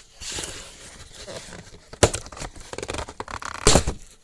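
A small cardboard shipping box being torn open, with tape tearing and the cardboard and packing rustling. There is a sharp snap about two seconds in and a louder short burst near the end.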